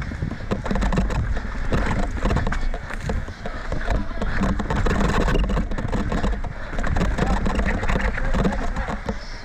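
Mountain bike descending a rocky dirt trail: tyres clattering over rock and loose dirt, with the bike rattling, and a steady rumble of wind on the camera's microphone.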